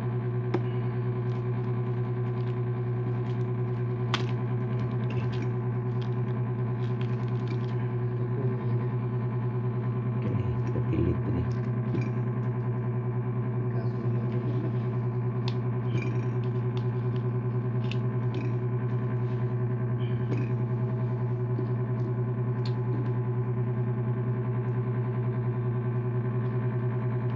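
A steady buzzing hum with several overtones, unchanging throughout, over faint scattered clicks and taps of small phone parts being handled, with a brief low knocking about ten seconds in.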